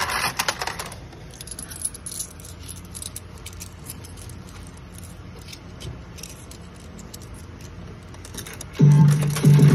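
Pachislot machine's electronic music cuts off about a second in, leaving faint metallic jingling and scattered clicks. The loud music starts again near the end.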